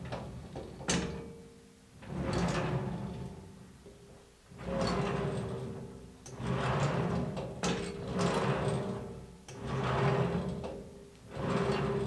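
Steel saw carriage rolling back and forth on its ball-bearing rollers along a square-tube steel beam. A rumbling roll with a ringing metal tone swells and fades with each push, about every one and a half seconds, with a sharp knock at some of the turnarounds.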